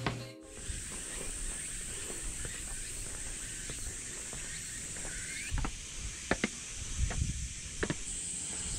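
Steady high-pitched drone of cicadas singing in the surrounding trees, with a few short knocks and low thumps in the second half.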